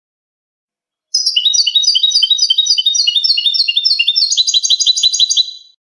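European goldfinch singing one song phrase: a run of repeated high, sharp notes at about four a second, turning near the end into a faster trill of about eight a second before stopping abruptly.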